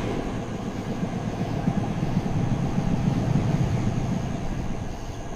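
Sound of a train running: a steady low rumble with fast rail clatter, easing off slightly near the end.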